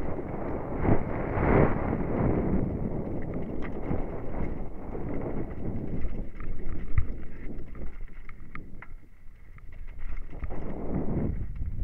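Downhill mountain bike descending a rough trail of loose stone and rock slabs: wind buffeting the microphone, tyres rolling over stone, and frequent sharp knocks and rattles from the bike over bumps. It drops quieter for a moment about three quarters of the way through, then picks up again.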